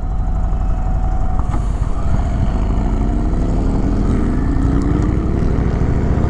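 Indian V-twin motorcycle engine and exhaust under way, its pitch climbing steadily from about two seconds in as the bike accelerates.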